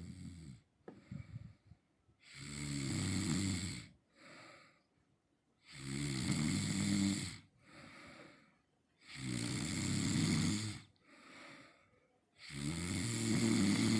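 A person snoring heavily in deep sleep: four loud, low, rattling snores about three and a half seconds apart, each followed by a shorter, quieter breath out.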